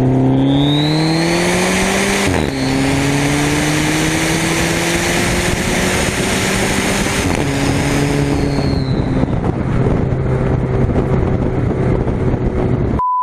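Turbocharged four-cylinder engine of a PT Cruiser GT pulling hard, its revs climbing and dropping sharply twice as the gears change, then holding steady. A bolt-on exhaust turbo whistle adds a high rising whistle early on and again later, over a steady hiss. A pure beep tone cuts in at the very end.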